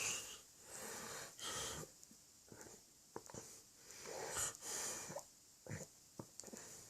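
A drunk man snoring in a heavy sleep: irregular, noisy breaths that come and go every second or so, with a few short clicks between them.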